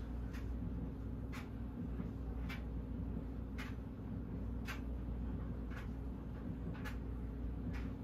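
Banvil/Envirofan Silver Line industrial ceiling fan coasting down after power-off, with a light tick about once a second over a steady low hum.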